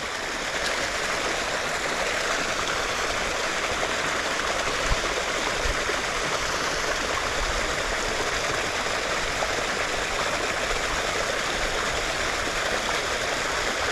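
Steady rush of water flowing in a small, shallow creek.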